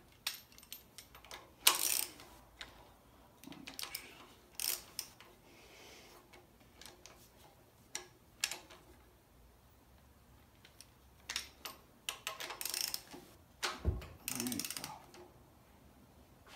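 Socket ratchet clicking in short, irregular bursts as the crankshaft bolt is turned to press the harmonic balancer onto the crankshaft, with scattered clinks of the tools and a dull knock near the end.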